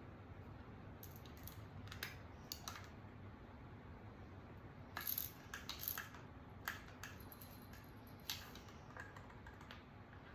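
Light, scattered clicks and clinks of small metal parts and a hand tool handled while a BB gun's trigger mechanism is taken apart, with a quick cluster of louder clicks about five seconds in.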